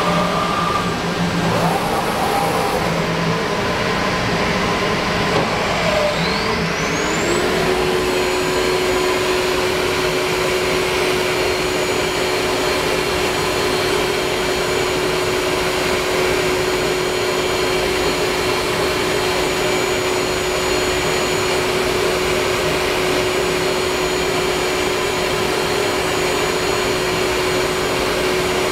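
Masterwood Atlas 5XL 5-axis CNC machining center running with its dust extraction: a loud, steady rushing noise. About seven seconds in, the spindle's whine rises in pitch and then holds steady.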